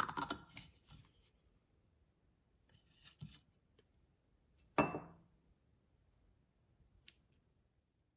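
Metal scraper working a resin print off a metal 3D-printer build plate: short scratchy scraping in the first second, then quiet, then a single sharp knock with a brief ringing tone a little before five seconds in, and a faint click near the end.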